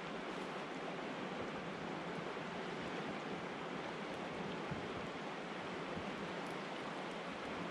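Steady wash of flowing river water and falling rain, even and unbroken, with a few faint ticks.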